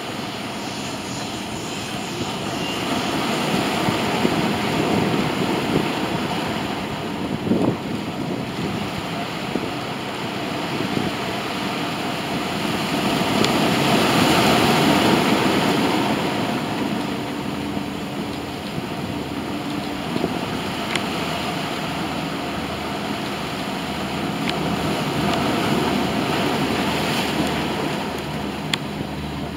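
De Havilland Canada Dash 8-100 twin turboprop on approach, its engines and propellers running with a steady sound that grows louder a few seconds in and again around the middle.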